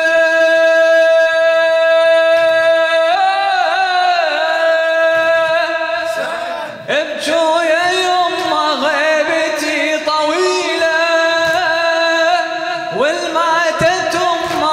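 A man singing a latmiya lament into a microphone: one long held note, then a wavering, ornamented melodic line.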